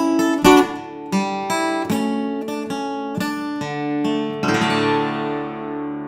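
Steel-string acoustic guitar played fingerstyle: a run of single plucked notes, then a closing chord about four and a half seconds in, left to ring and fade as the piece ends.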